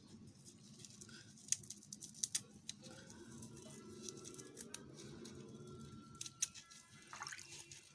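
Kitchen scissors snipping the shell along the sides of a mantis shrimp: scattered sharp clicks, a cluster in the first half and two more near the end.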